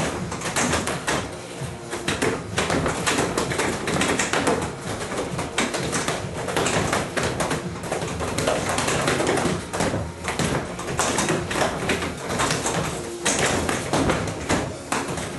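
Rapid hand strikes and slaps against the padded arms and pads of a Focus Master striking frame, a fast, irregular run of taps and thuds.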